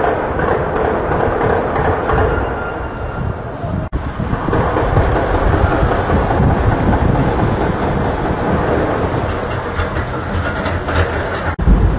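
Distant gunfire from armed clashes across a city: a dense, continuous rattle of shots echoing off buildings over a heavy low rumble.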